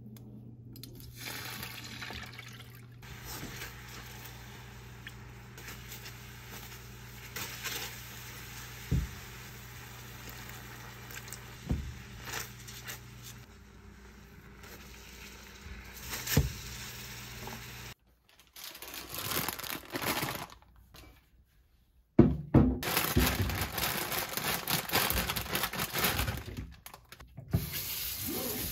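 A pan on the stove is stirred with a spatula, over a steady low hum and a few sharp knocks. About three quarters of the way in, a kitchen tap runs over a colander of broccoli in a stainless steel sink as the florets are rinsed by hand.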